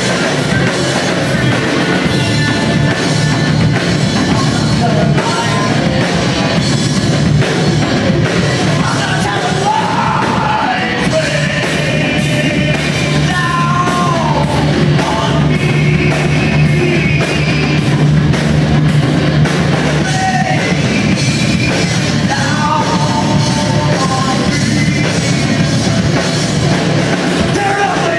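Live rock band playing loud without a break: two electric guitars, electric bass and a drum kit, amplified through the room's PA.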